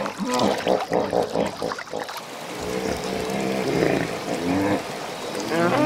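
Hippopotamuses calling, a run of pitched honking calls from about three seconds in, over water splashing and trickling.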